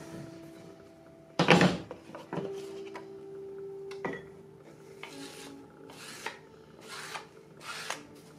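Wooden rolling pin rolled over a slab of clay on a wooden board, the loudest stroke about a second and a half in. A short knock around four seconds as the pin is set down, then a few soft strokes of a hand rubbing over the clay surface.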